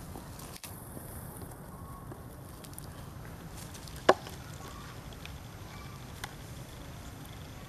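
Faint crackling of dry leaf litter over a steady low background noise, with one sharp snap about four seconds in and a smaller click about two seconds later.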